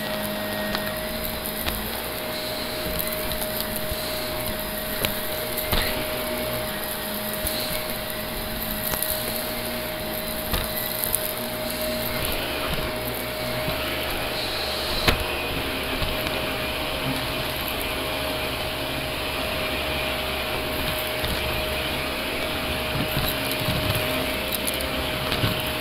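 Shark Navigator upright vacuum cleaner running steadily with a constant motor whine, passing over a shag rug and tile floor. Scattered clicks and crackles of debris being sucked up through it.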